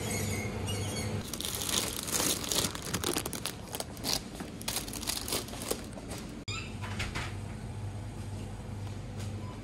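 Plastic food packaging crinkling and rustling as it is handled close to the microphone, from about a second in until just past the middle, where it cuts off suddenly. A steady low hum fills the rest.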